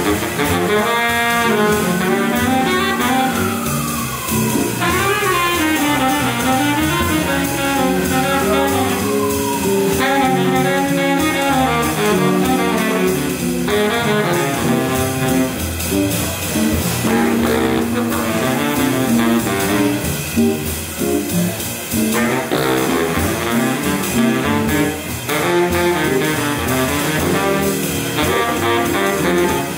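Live jazz: a baritone saxophone playing a melodic line over a small band of electric guitar, upright bass and drums, with two long downward slides in pitch in the first ten seconds.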